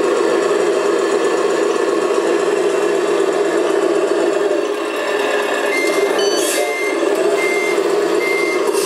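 Reversing beeper of a 1/14-scale RC IVECO 4x4 dump truck: several short, evenly spaced beeps at one pitch, a little under one a second, starting about six seconds in, over a steady mechanical hum from the model.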